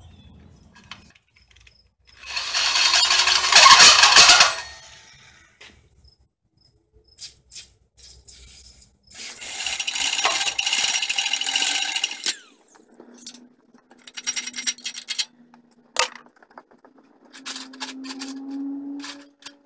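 Power drill with a hole saw cutting through a steel plate, in two long runs of a few seconds each and then shorter bursts of cutting, with sharp metal clicks in between.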